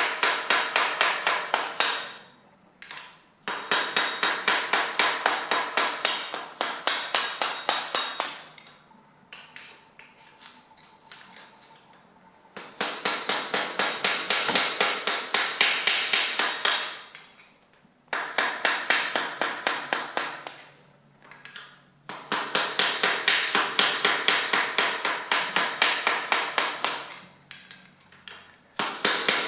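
Hammer rapidly striking a flat-head screwdriver set against a stripped bicycle crank arm, driving the arm around to work it loose. The metal-on-metal strikes come in long runs of about four or five a second, broken by short pauses.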